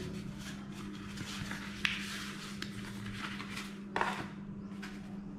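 Paper booklets and a manual rustling as they are handled and laid down on a tabletop, with light knocks, the sharpest about two seconds in and again at four seconds, over a steady low hum.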